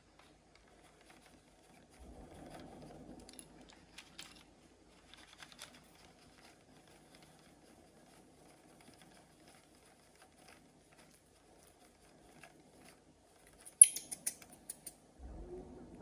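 Light clicking and rustling as plastic toys are handled and their buttons pressed, with a short cluster of sharp, loud clicks near the end.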